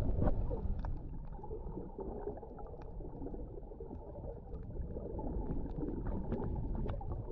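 Muffled underwater sound heard through a camera housing: a low, steady rumble of moving water with scattered faint clicks.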